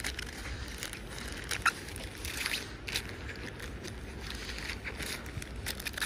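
A wet plastic bag of ammunition cartridges being handled: irregular crinkling and small clicks over a low, steady rumble.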